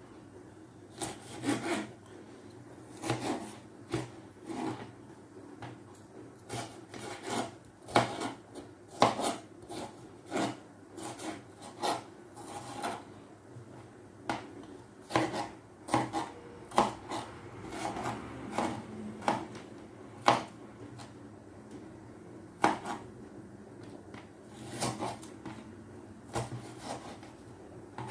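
Kitchen knife chopping red bell pepper on a plastic cutting board: irregular sharp taps of the blade striking the board, roughly one or two a second, with a few short pauses.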